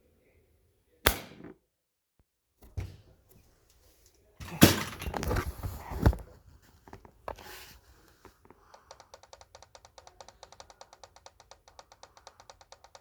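Sharp shots and mechanical clacks from a CYMA M24 bolt-action airsoft rifle converted to high-pressure air, spaced a second or two apart. From about eight seconds in, a fast, even ticking runs at several ticks a second.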